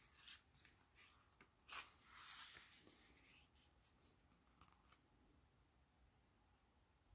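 Faint paper sounds as a hand turns a page of a hardcover picture book: a few light taps and handling ticks, with the page's brief swish about two seconds in.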